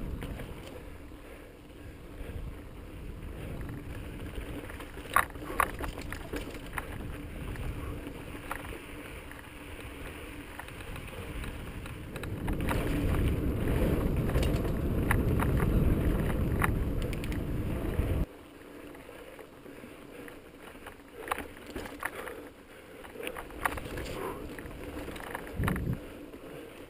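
Mountain bike riding over bare sandstone: wind rumbling on the camera microphone with tyre noise and scattered clicks and rattles from the bike. The rumble swells about twelve seconds in and drops off suddenly about two-thirds of the way through.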